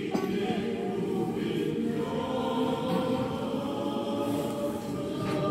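Romanian Orthodox church choir singing a liturgical hymn, several voices in slow, long-held chant.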